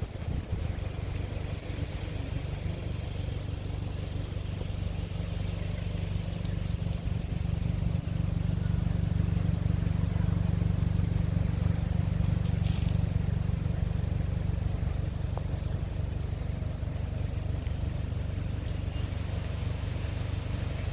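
Cupra 290's turbocharged 2.0-litre four-cylinder engine running at a steady speed, a constant low drone that grows a little louder about eight seconds in, with no pops or bangs.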